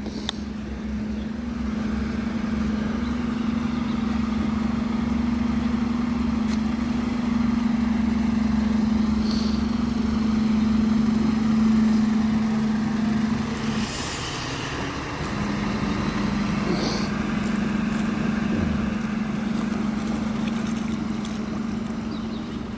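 Heavy truck's diesel engine running steadily as it drives slowly through deep floodwater, with water washing around it. The engine note drops out briefly about two-thirds of the way through, and a few short hisses come in the middle.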